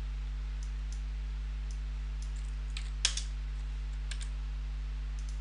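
A few scattered computer keyboard and mouse clicks, the clearest about three seconds in, over a steady low electrical hum.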